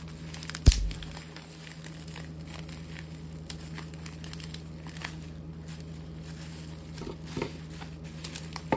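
Bubble wrap crinkling and rustling as hands unwrap a small part, with a dull thump on the wooden bench a little under a second in.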